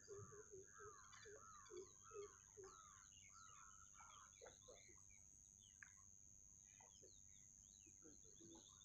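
Faint bird calls: a quick run of repeated arched calls, about three a second, for the first three seconds, then scattered short chirps. A steady high-pitched hiss lies under them.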